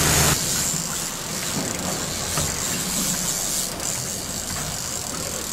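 Boat's outboard motor running, under a steady hiss of wind and sea.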